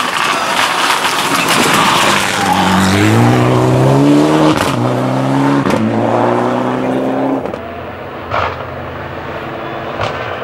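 Mitsubishi Lancer Evolution X rally car's turbocharged four-cylinder engine at full throttle, the note rising through the revs, dipping at an upshift about halfway in, then rising again. The sound then drops suddenly to a quieter, more distant car, with a sharp pop a little later.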